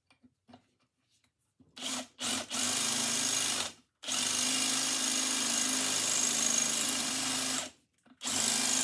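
Bosch drill boring a larger hole into the neck of a statue, run in stop-start bursts. After a quiet moment come two short bursts, then a run of about a second and a half and one of nearly four seconds with a brief stop between, then one more short burst near the end.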